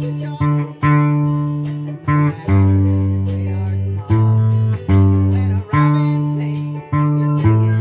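Octave ukulele tuned EADG like a bass guitar, plucked in a slow bass line of single low notes, each starting sharply and ringing as it fades into the next.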